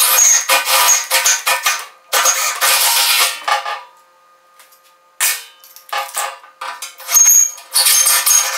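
Cordless drill boring a half-inch hole through a tractor loader bucket's steel, the bit grinding and squealing as it cuts the metal. It runs in bursts, stops for about a second and a half near the middle, then starts cutting again.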